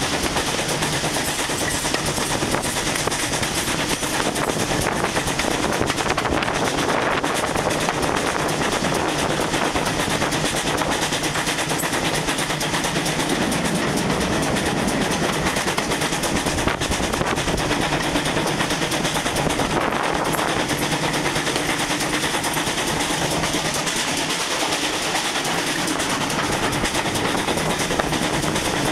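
Steam tank locomotive hauling the train, its exhaust beats mixed with the wheels running over the rails, heard steadily and loudly from an open carriage window.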